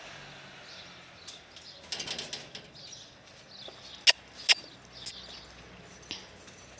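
A few short, sharp clicks over a faint outdoor background: a quick cluster about two seconds in, then two louder clicks half a second apart about four seconds in, and a weaker one after.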